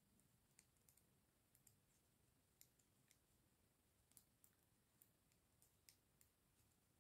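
Near silence with faint, irregular clicks of knitting needles, about one or two a second, as stitches are knitted and purled.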